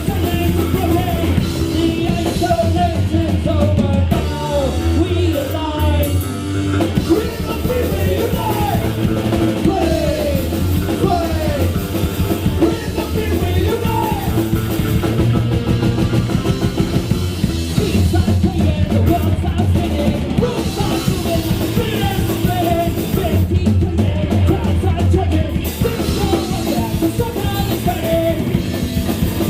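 Live rock band playing a loud, fast song: drum kit, guitars and bass, with singing.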